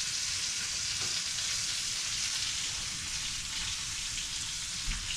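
Fish fillets sizzling steadily in a hot frying pan.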